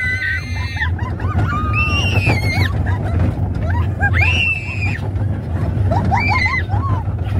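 Roller coaster riders, a young boy among them, screaming and shrieking with delight, high rising-and-falling cries coming about every two seconds, over the steady low rumble of the moving coaster train.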